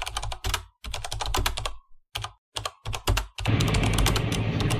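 Rapid computer-keyboard typing clicks in several quick runs with short pauses: a typing sound effect. About three and a half seconds in, this gives way to the steady hum of road and engine noise inside a moving car.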